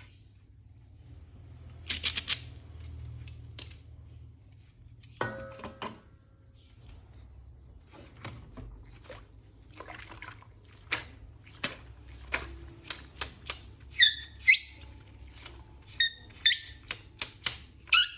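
Handling of plastic action-figure toys: scattered sharp clicks and taps, with a run of short high squeaks near the end.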